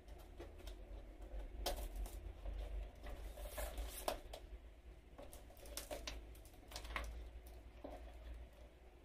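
A taped cardboard parcel being slit open with a small blade and handled: irregular short scratches and clicks as the packing tape is cut and the box is turned over.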